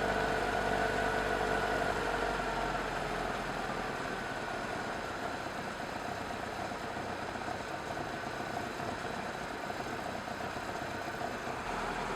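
BMW 2002's four-cylinder engine on twin Dellorto DHLA40 carburettors, idling while warming up. Over the first few seconds the idle is turned down and the engine settles to a lower, steady idle.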